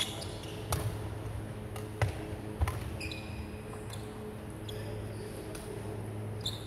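Badminton doubles rally: sharp racket strikes on the shuttlecock, several in the first three seconds and another near the end. Shoes squeak briefly on the wooden court around the middle, over a steady low hum.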